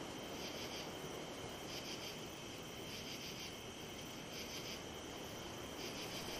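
Crickets and other night insects: a steady high trill under a chirp of a few quick pulses that repeats about every second and a half.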